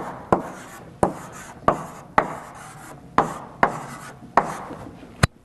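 Chalk writing on a blackboard: a run of sharp taps, each followed by a short scratch as the chalk drags across the board, about nine strokes, ending with a short tap near the end.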